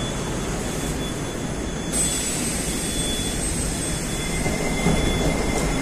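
Steady hum and hiss of an 81-760A "Oka" metro train standing at the platform with its doors open. A thin high whine sets in about two seconds in.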